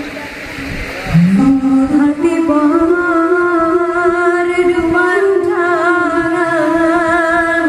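Music with a singer holding long notes with vibrato; a note slides upward about a second in.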